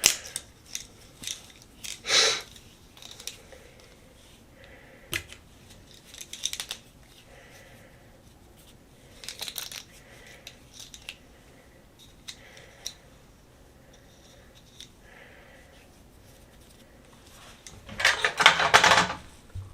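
Scattered light clicks and scrapes of hair being pulled off a hairbrush by hand, with a louder rustle near the end.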